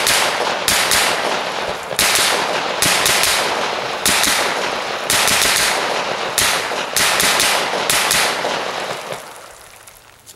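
American Resistance Gear AR-9 9mm semi-automatic pistol firing a quick string of shots, about a second apart and sometimes two in close succession, each report ringing on. The shooting stops about nine seconds in and the last report dies away over about a second.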